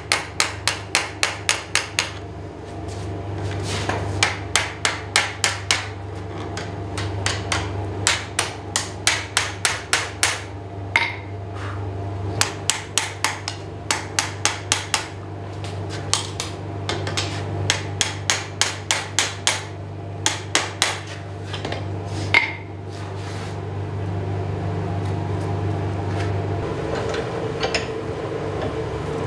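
Hand hammer striking hot steel square bar on an anvil in runs of quick blows, about four a second, with short pauses between runs: the split ends of the bar being forged open to start the arms of a cross. A steady low hum runs underneath, and the blows stop a few seconds before the end.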